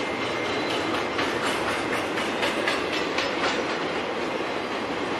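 Intermodal freight train's double-stack well cars and trailer cars rolling past, a steady rumble of steel wheels on rail with a quick run of clicks over the rail joints in the middle.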